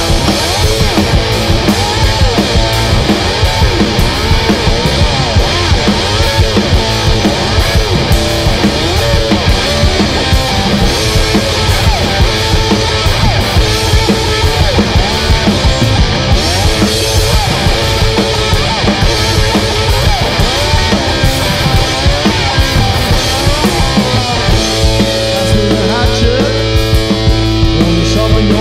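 Loud punk-blues rock played live: electric guitar over a fast, driving drum-kit beat. About 25 seconds in, the guitar settles into held, ringing chords.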